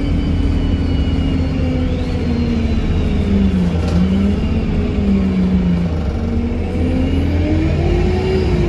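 Interior of an Alexander Dennis Enviro 200 MMC single-deck bus on the move, over a constant low road rumble. The Cummins 4.5-litre diesel engine's note falls over the first four seconds and holds low. From about six seconds in it rises steadily as the bus accelerates again through its Voith automatic gearbox.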